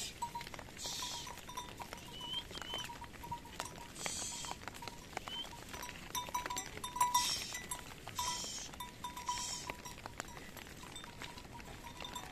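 A flock of sheep and goats on the move, bleating now and then.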